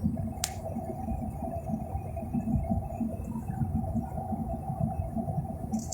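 Low, fluttering rumble with a steady hum over it, and a single sharp click about half a second in.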